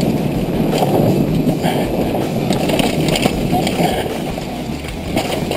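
Downhill mountain bike running fast down a dirt forest trail, heard from a GoPro on the bike: a steady rush of wind and tyre noise with scattered knocks and rattles as the bike hits roots and bumps.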